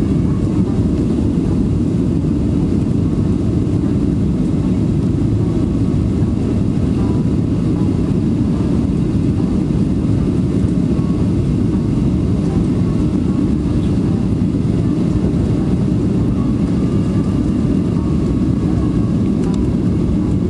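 Steady cabin noise of a Boeing 737-400 on approach with its flaps extended: a constant low roar of its CFM56 jet engines and rushing airflow, with no change in pitch or level.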